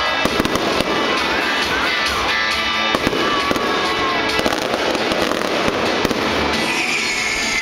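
Aerial fireworks bursting in a series of sharp bangs, with music playing throughout.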